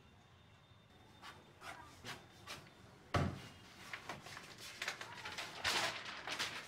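Pen scratching on notebook paper in a few short strokes, a single thump on a wooden desk about three seconds in, then a rustle of textbook pages being handled and turned near the end.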